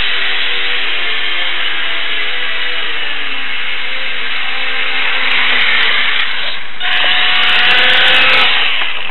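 Small RC aircraft's electric motor and propeller whining over a steady airflow rush, heard through a tiny onboard camera's microphone; the pitch steps down about three seconds in as the throttle eases, then a louder rush comes near the end.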